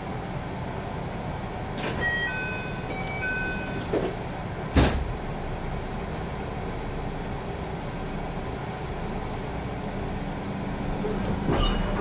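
Inside a stationary JR West 221-series electric train: a steady background rumble, a short series of electronic beeps about two seconds in, and one loud thump about five seconds in. Near the end a steady hum sets in and the level rises as the train starts to pull away.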